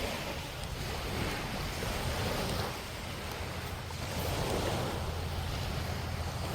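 Small surf breaking and washing up the sand, swelling twice, with wind buffeting the microphone in a low rumble underneath.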